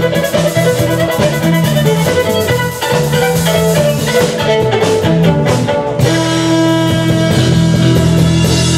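Live folk-fusion ceilidh band playing through a PA, with guitar and a drum kit over a bass line; the chord shifts sharply about six seconds in.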